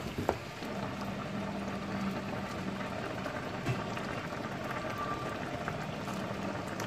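Thick meat-and-tomato sauce simmering in a steel pot on an electric hob: a steady bubbling with small pops throughout.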